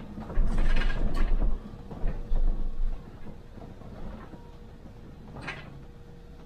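Cab noise of a MAN Lion's City hybrid city bus: low rumbling thumps over the first three seconds, then a steadier hum with a faint steady tone, and a short sharp hiss about five and a half seconds in.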